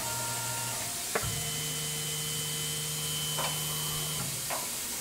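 Tormach PCNC 1100 mill spindle running through a tapping cycle with a spiral flute tap in steel: a steady motor whine that shifts higher with a click about a second in and drops back about four seconds in, with a few faint ticks.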